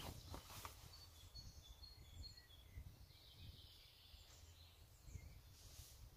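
Near silence: faint chirps of a small songbird in the first half, over a low wind rumble.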